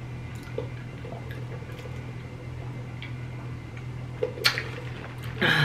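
Drinking through a straw from a paper fountain cup: quiet sips and swallows with small clicks, and a louder one about four and a half seconds in, over a steady low hum.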